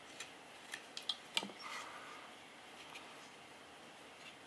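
Small clicks and a brief scrape of steel parts against the polymer frame of a Glock 17 Gen 4 pistol as the slide stop lever is worked into place. There are about five sharp little clicks in the first second and a half, then a short scrape, then one faint tick.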